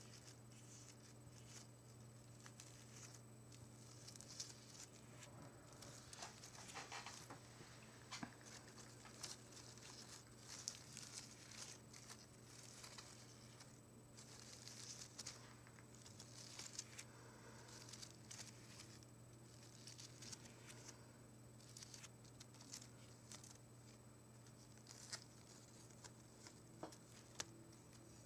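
Fingers faintly rustling and crinkling the petals and leaves of a fresh flower bouquet, in short, irregular crackles and soft clicks.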